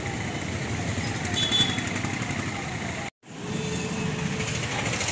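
Street traffic: cars and motorbikes running past, a steady rumble with one vehicle's pitch falling as it goes by. The sound cuts out completely for a moment about three seconds in.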